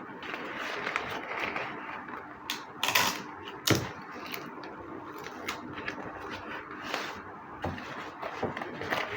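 Hand packing by hand: cardboard and packing material being handled and folded, with rustling, scattered small clicks and two sharp knocks about three seconds in.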